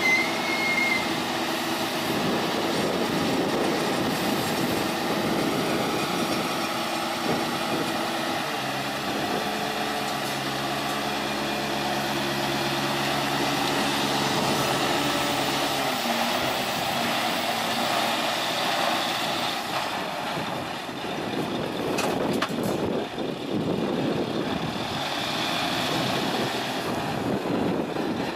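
Scania hooklift truck's engine running under load, driving the hydraulic hook arm as it pulls a steel container up onto the truck bed. A steady hum holds through the middle, drops in pitch a little past halfway, and turns rougher near the end as the container settles.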